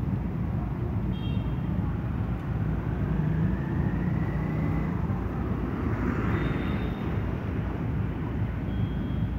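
Road traffic: engines of passing motorcycles and cars running over a steady low rumble, with a slowly rising whine in the middle and a few short high tones.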